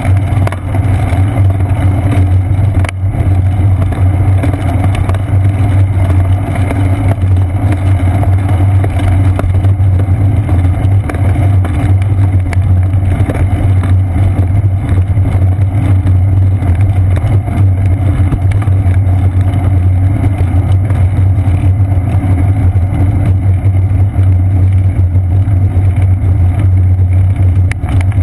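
Loud, steady low drone of riding noise on a bicycle-mounted action camera: wind and tyre-on-pavement vibration carried through a seat-post-mounted GoPro Hero 2.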